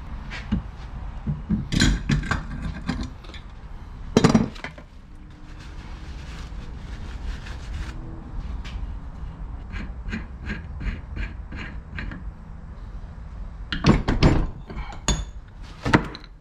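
Tools and metal parts being handled at a steel bench vise: irregular knocks and clanks, loudest about two, four and fourteen seconds in, with a run of light ticks in between, over a steady low hum.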